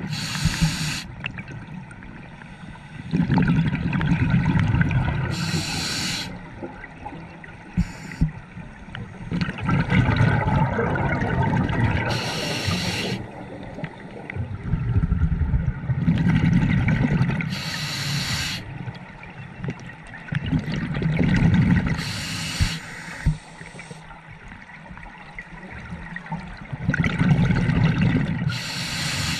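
A scuba diver breathing through a regulator, heard through the camera's underwater housing. Each inhale is a short, sharp hiss from the demand valve, followed by a longer low rumble of exhaled bubbles, in a cycle of roughly every five seconds, about six breaths in all.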